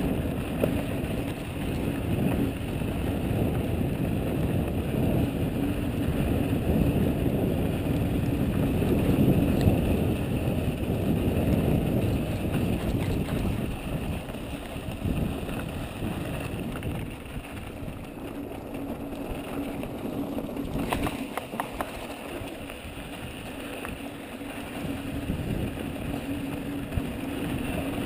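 Ibis Mojo HD full-suspension mountain bike descending a loose dirt trail at speed: a continuous rough rumble of knobby tyres on gravelly dirt and the rattle of the bike over the bumps, somewhat quieter in the second half, with a few sharp clicks past the middle.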